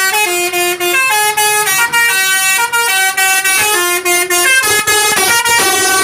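A bus's telolet multi-tone air horn playing a fast tune, its notes changing several times a second with only brief breaks between them. It is loud.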